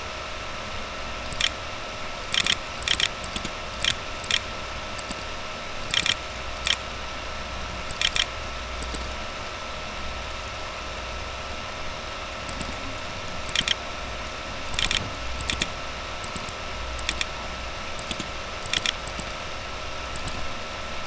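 Computer mouse button clicking about twenty times at an uneven pace, some clicks in quick pairs, as keys on an on-screen keyboard are clicked one by one. A steady electrical hum runs underneath.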